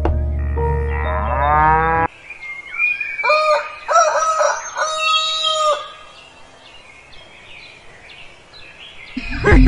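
Music with a rising glide cuts off about two seconds in, followed by farm-animal calls: one rising call, then three or four short, steady-pitched calls over the next few seconds. It goes quieter after that, and music comes back in near the end.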